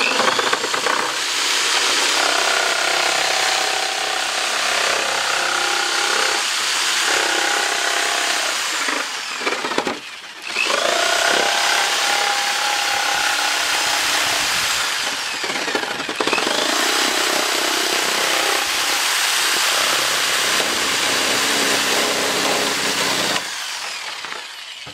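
Electric jigsaw running as its blade cuts around a plastic bucket near the base. It stops briefly about ten seconds in, starts again and cuts off shortly before the end, when the bottom is cut free.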